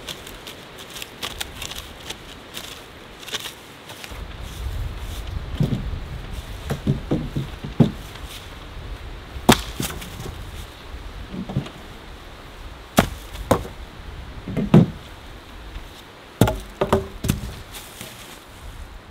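Wood being chopped: several sharp strikes with a dull thud, a second or more apart and irregular, over a steady hiss.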